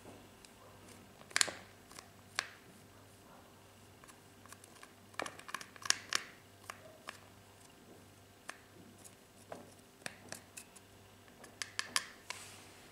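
A small stick scraping and chipping pressed powder out of a makeup compact: irregular scratches and sharp clicks, with a few quick clusters of scrapes.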